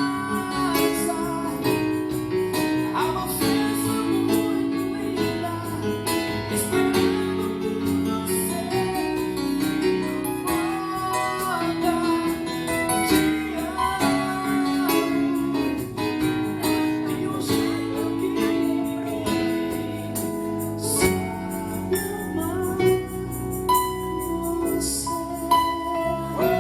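A small live band playing a gospel song: keyboard, electric bass, cajón and tambourine, with a steady beat.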